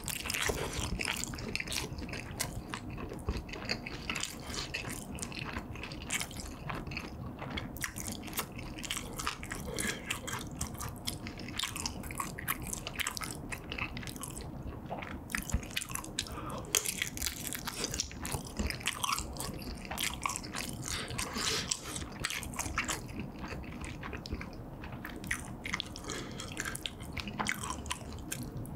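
Close-miked biting and chewing of a kielbasa sausage and tteokbokki, with many irregular wet mouth clicks throughout.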